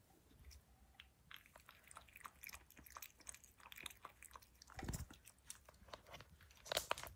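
Maltipoo puppy lapping water from a bowl: a quick run of faint wet clicks, several a second, with a couple of louder knocks about five seconds in and near the end.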